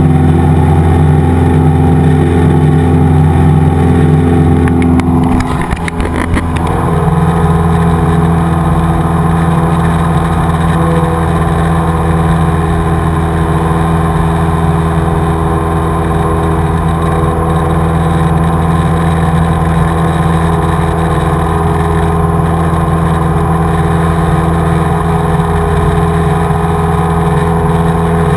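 Cessna's single piston engine and propeller running in a steady loud drone in cruise flight. About six seconds in, the level dips briefly and the drone takes on a slightly different set of tones, then runs steady again.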